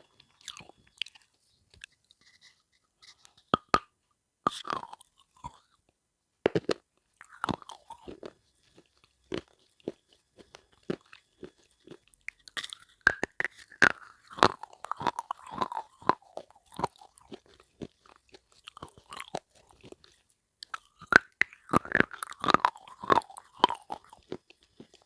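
Close-miked biting and chewing of red slate pencil and dried clay: irregular sharp crunches with short quiet gaps, coming thicker and louder in two runs in the second half.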